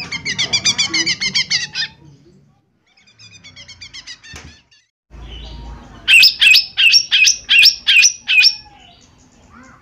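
Lesser green leafbird (cucak ijo mini) singing: a fast chattering run of high notes, a quieter phrase, then a loud series of about eight sharp, down-sweeping notes.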